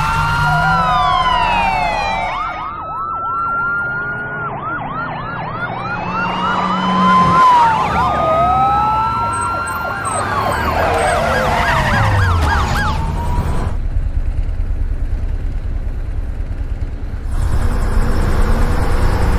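Several police car sirens sounding at once, their long rising-and-falling wails overlapping with fast yelp sweeps of about four a second. The sirens stop about thirteen seconds in, leaving a low vehicle rumble that grows louder and pulses near the end.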